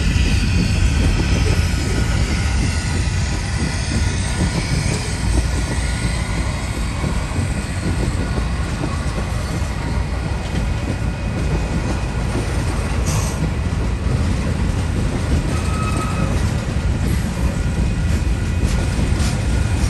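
Long freight train of tank cars and covered hopper cars rolling steadily past, with a continuous heavy rumble of steel wheels on rail.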